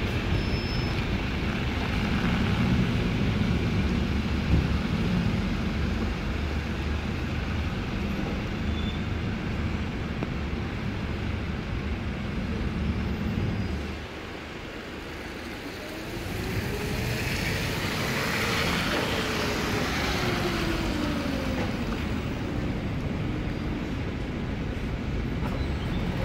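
Double-decker buses idling and moving off on a wet road: low engine rumble over the hiss of wet tarmac. About halfway the rumble drops away for a couple of seconds, then a whine rises and falls in pitch over a few seconds before the rumble comes back.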